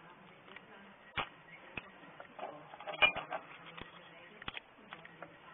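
Small locking pliers being handled, giving a few scattered sharp clicks and taps, with the loudest cluster about three seconds in, over a faint low hum.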